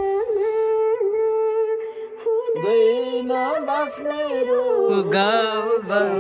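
A song playing, with a long held sung note. About two and a half seconds in, a lower line joins it with a wavering, ornamented melody.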